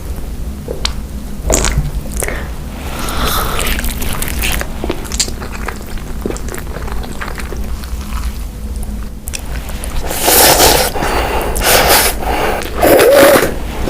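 Close-miked eating: biting and chewing, with scattered small clicks at first and a run of loud crunching bursts in the last few seconds, over a steady low hum.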